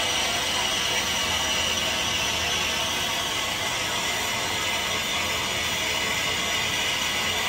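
Steady hiss of steam from a standing steam locomotive, LMS Ivatt Class 2MT No. 46521: an even rushing noise that does not change in level.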